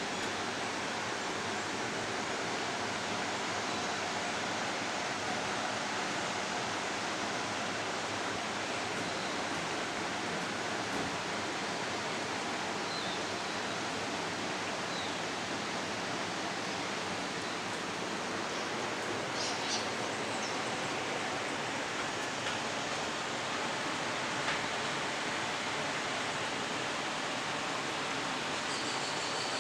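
Steady, even rush of flowing water, with a few faint short high sounds over it about two-thirds of the way in and again near the end.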